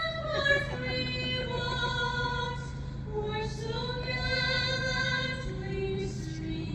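Background song with a woman's voice singing long held notes over a steady synth bass.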